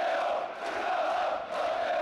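A large crowd of football supporters chanting together in the stand. The mass of voices swells and dips about once a second.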